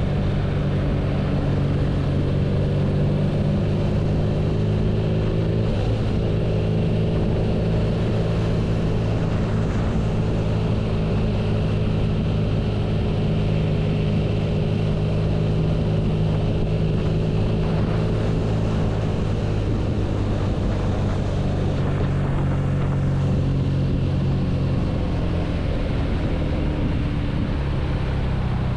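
BMW R nineT's air/oil-cooled boxer twin running steadily on the move, its pitch holding fairly even with a few small shifts.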